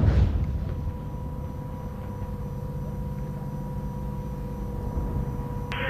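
The boom of a towed howitzer's shot dying away into a low rumble and echo over the range, fading over the first second or so and then holding steady. A broader hiss comes in near the end.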